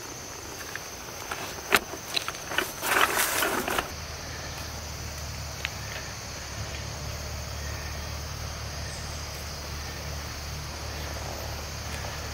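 Rustling and a few sharp clicks of clothing and gear being moved inside a fabric hunting blind, loudest about three seconds in. From about four seconds in there is only a steady low hum with a thin steady high drone above it.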